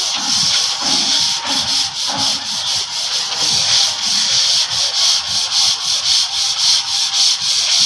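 Sandpaper rubbed by hand over a puttied wall, in rapid, even back-and-forth strokes.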